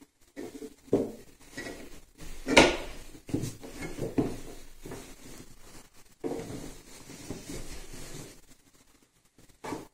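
Lidded canning jars of milk knocking and clinking as they are handled and set down into a cooler: a series of irregular knocks and clatters, the loudest about two and a half seconds in.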